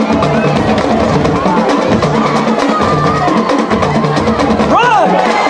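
A drumline's drums playing a steady, driving beat with rapid strokes on snares and bass drums. A single rising-and-falling call cuts through near the end.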